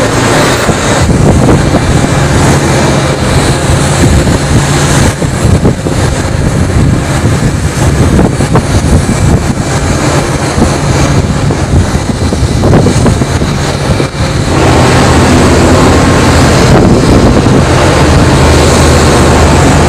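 Loud, steady engine rumble with a low hum under wind rush on the microphone, heard at sea aboard a ship. About two-thirds of the way in the sound shifts and becomes louder and steadier.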